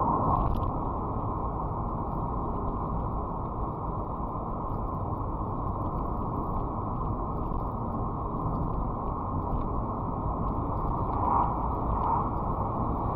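Steady road and engine noise of a car being driven, with a few brief swells near the end.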